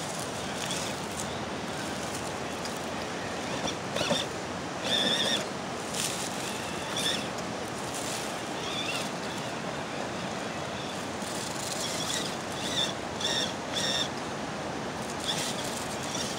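Steady rush of river water over shoals, with short high whirs from a radio-controlled rock crawler's electric motor and gears as it is driven in bursts up the rocks.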